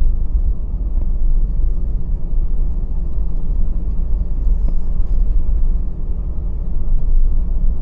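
A car driving along, heard from inside: a steady low rumble of engine and tyre noise.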